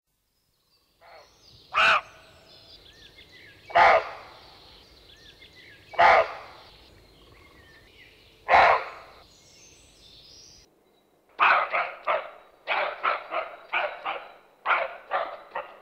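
A dog barking: four single barks about two seconds apart, then, about eleven seconds in, a fast run of barks, about three a second. Faint birdsong can be heard between the early barks.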